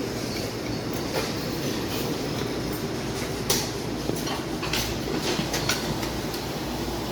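Steady low rumbling ambience with irregular sharp clacks and knocks, the loudest about three and a half seconds in.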